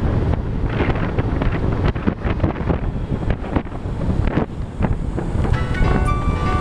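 Wind rushing over the microphone of a moving motorcycle, a steady low rumble with road noise under it. Music fades in near the end.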